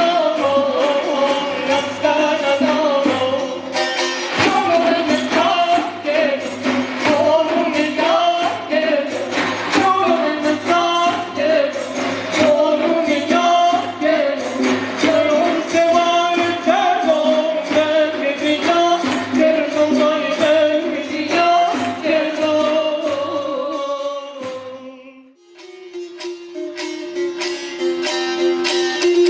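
Iranian folk ensemble playing: a sung melody over large frame drums beating a steady rhythm, with plucked long-necked lutes and keyboard. About 25 seconds in, the song stops; a held note and a plucked long-necked lute start a new passage.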